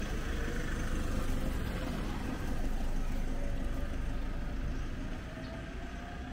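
Motor vehicle engine running at low speed: a steady low rumble, with a faint tone that rises slowly in pitch over the second half.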